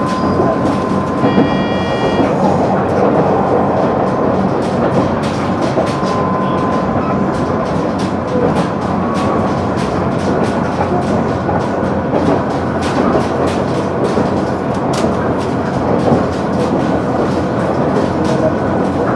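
KiHa 100 diesel railcar running at speed, heard from inside the car: a steady rumble of engine and wheels on rail, with rail-joint clicks throughout and a brief high ringing tone about a second in.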